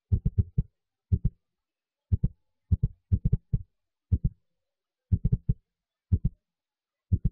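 Deep, muffled thumps in quick clusters of two to four, coming about once a second, with dead silence between the clusters.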